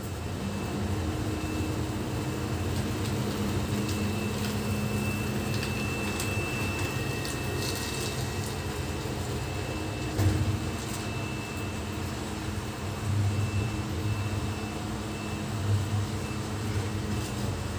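Vacuum cleaner motor running steadily, a low drone with a thin high whine, with a few short knocks about ten seconds in and near the end.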